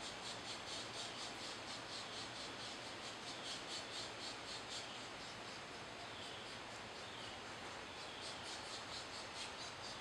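Pileated woodpecker nestlings begging: a rapid series of high-pitched pulsed calls, about six a second, that pauses around the middle and starts again near the end, over a steady hiss.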